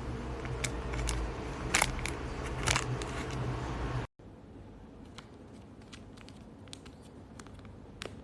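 Scattered sharp clicks and rustles, like small objects being handled, over a steady low hum. About four seconds in the sound cuts off abruptly and gives way to quieter room noise with only a few faint clicks.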